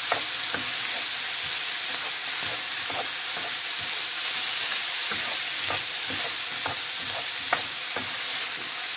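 Diced chicken liver, gizzard and vegetables sizzling in oil in a non-stick pan, with a steady hiss, while a wooden spatula stirs them and knocks and scrapes against the pan at irregular moments.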